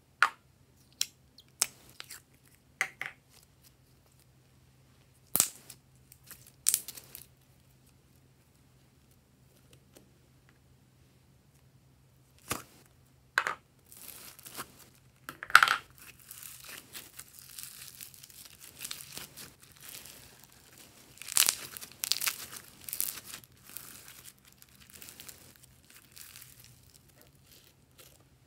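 A few sharp clicks and taps, then from about halfway a dense crackling with louder snaps as purple floam, slime packed with small foam beads, is squeezed and pressed into a strip.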